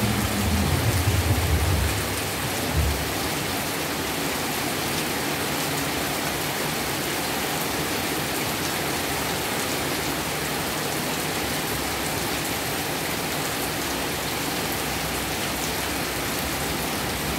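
Heavy rain pouring steadily. A low rumble in the first two seconds dies away.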